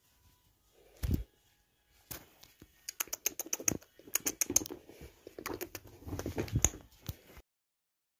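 Irregular clicking and scuffling as a kitten paws and grabs at a hand, with a dull thump about a second in. The sound cuts off suddenly near the end.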